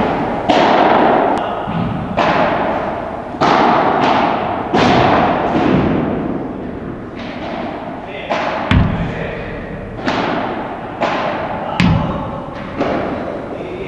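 Padel balls being struck by rackets and bouncing during a feeding drill, about one hit a second, each with a long echo in the hall. A few of the hits are sharper, with a heavier thud.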